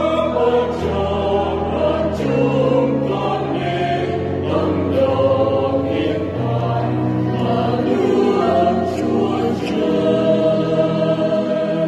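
Church choir singing a hymn in Vietnamese, with electronic keyboard accompaniment holding steady low notes beneath the voices. From about ten seconds in, the choir holds one long closing note.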